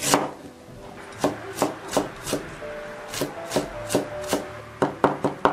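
Chinese cleaver chopping ginger on a wooden cutting board: about a dozen sharp, separate chops, irregularly spaced, coming quicker near the end, as sliced ginger is minced. Soft background music underneath.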